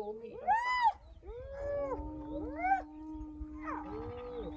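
Several spotted hyenas calling over one another: overlapping whoops and yells that rise and fall in pitch, the loudest about half a second in, with one long held note from about two seconds in.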